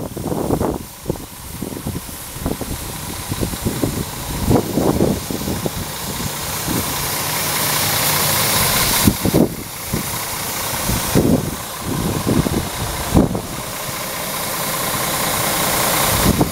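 Scania R450 tractor unit's 13-litre straight-six diesel idling steadily, with irregular low thumps over it.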